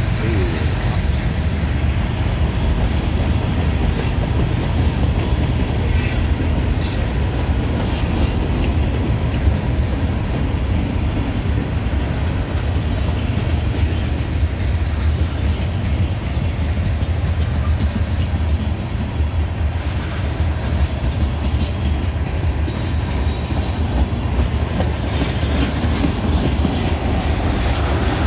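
CSX freight train's tank cars and covered hoppers rolling past: a steady low rumble of steel wheels on rail, with some high-pitched wheel squeal about two-thirds of the way through.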